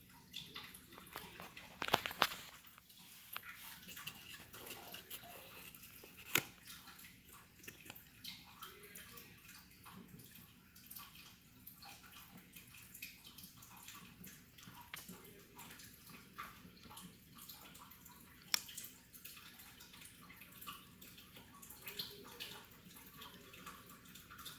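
Low water trickling and dripping in a turtle tank, with small splashy ticks and a few sharp clicks, about two, six and eighteen seconds in.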